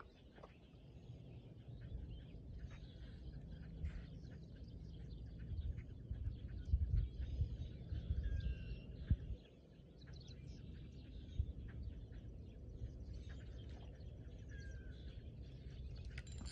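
Outdoor ambience: a low, gusting wind rumble on the microphone, louder from about six to nine seconds in, with birds chirping now and then.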